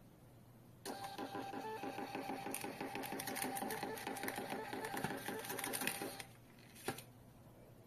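Mini wireless thermal receipt printer printing: the paper-feed motor runs with a fast, even pulsing and a steady whine, starting about a second in and stopping after about five seconds, followed by a single sharp click.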